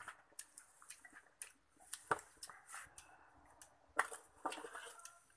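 Scattered light clicks and knocks of things being handled at a charcoal grill, with two sharper knocks about two and four seconds in.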